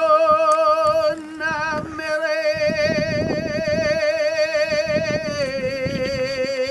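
A single voice chanting in long held notes with a strong, even vibrato. The pitch steps down about five seconds in. Gusts of wind rumble on the microphone underneath.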